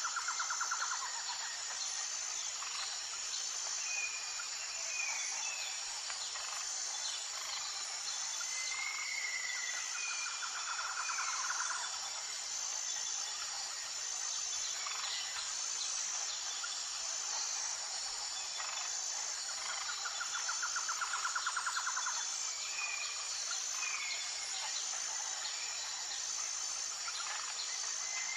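Outdoor nature sound: a steady, high insect drone with a faint pulsing pattern. Over it a bird repeats a fast trill lasting about a second and a half, three times at roughly ten-second intervals, with short, higher chirps in between.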